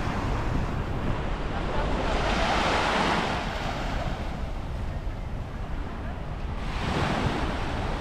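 Small sea waves breaking and washing up a sandy, pebbly beach, swelling twice about four seconds apart, with wind rumbling on the microphone.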